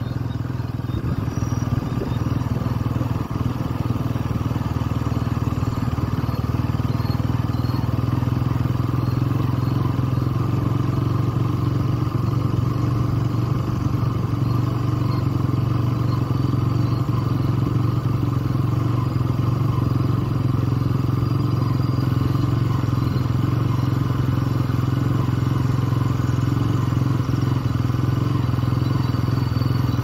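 Motorcycle engine running at a steady speed, its low drone holding an even pitch with no revving or gear changes.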